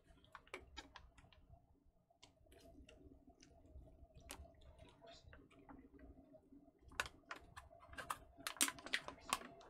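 Crinkling and clicking of a plastic water bottle and an MRE flameless ration heater bag being handled while water is poured into the heater bag. Scattered light crackles at first, then a run of louder, quicker crackles near the end.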